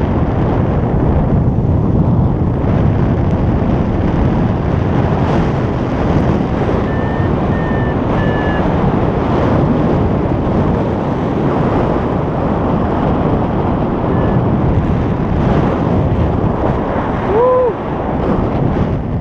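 Strong wind buffeting the microphone, a steady rushing roar. Three short high beeps come partway through, another later, and a single lower tone comes near the end.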